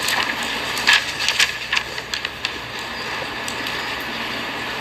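Pages of a document rustling and being turned, with a few light clicks in the first couple of seconds, over a steady hiss.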